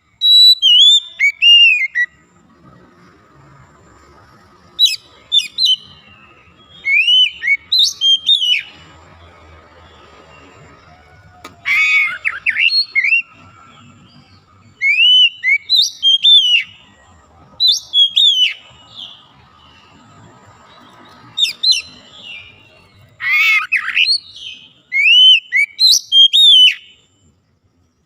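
Oriental magpie-robin (kacer) singing: short phrases of clear, sweeping whistled notes in repeated bouts, with pauses of a second or two between them.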